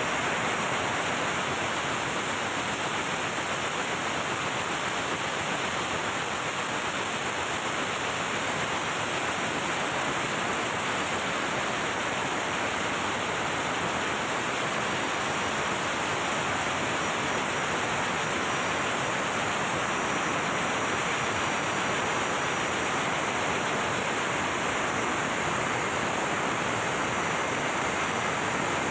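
MAN B&W auxiliary diesel generator running in its engine room: a steady, even rush of machinery noise with no distinct beat or separate knocks.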